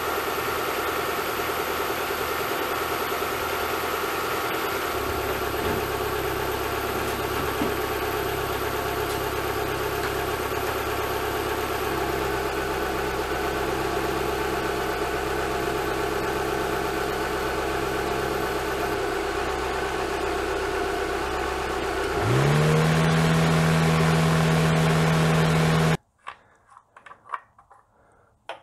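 High-mileage car engine idling steadily as it warms up from cold, heard close up under the open bonnet, with the pitch shifting slightly at a few cuts. About 22 seconds in, the engine speed rises quickly and holds higher and louder. It then cuts to near quiet with a few faint clicks.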